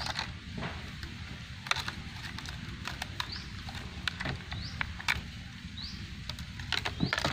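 Irregular clicks and knocks of hands handling the fishing rig's small hard parts, over a steady low rumble, with short faint rising chirps about once a second.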